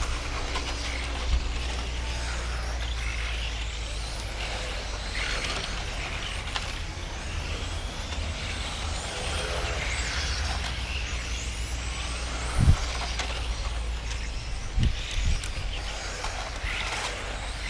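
Electric 1/10-scale RC touring cars racing, their motors whining up and down in pitch as they accelerate and brake, over a steady low rumble. A dull thump about two-thirds of the way in, and a couple of smaller ones about two seconds later.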